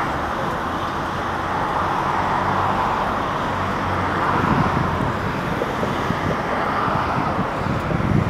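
Steady outdoor background noise that swells and fades slowly every few seconds, with a faint low hum underneath.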